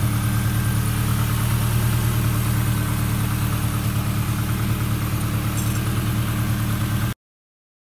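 Turbocharged Honda DOHC four-cylinder engine idling steadily with an even pulse; the sound cuts off suddenly near the end.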